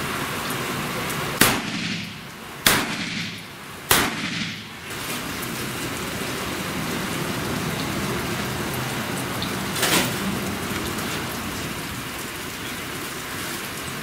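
Three pistol shots about a second and a quarter apart, each with a short echoing tail, then a fainter shot about ten seconds in, over a steady hiss of rain.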